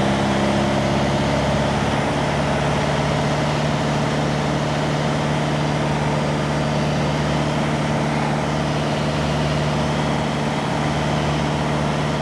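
Small plane's engine and propeller running steadily in flight, heard from inside the cabin as an even drone with a steady low hum.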